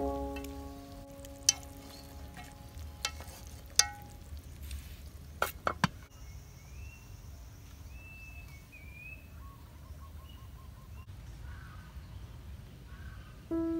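Sharp metallic clinks of an aluminium cooking pot and its lid, four of them spread over the first six seconds, over the fading end of background music; then outdoor ambience with birds chirping.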